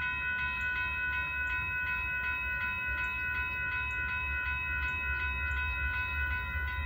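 Railroad crossing warning bell ringing steadily, a repeated metallic ring with strikes about once a second, while the crossing is active for an approaching train. A low steady rumble runs underneath.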